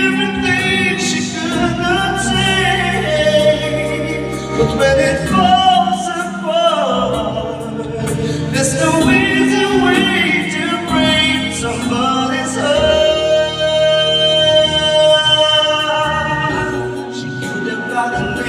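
Music: a slow ballad with wordless singing over a backing track, the voices holding one long note a little past the middle.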